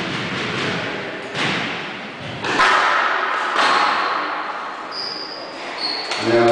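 Squash ball being hit back and forth in a rally: sharp racket-and-wall strikes about a second apart, echoing around the hall, with two short high squeaks near the end.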